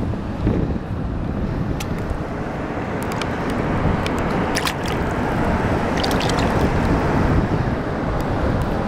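Wind buffeting the microphone over small waves lapping against a rocky shoreline, with a few short clicks scattered through.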